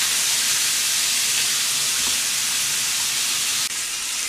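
Pork belly sizzling as it grills on a hot pan: a steady hiss that breaks off for an instant near the end.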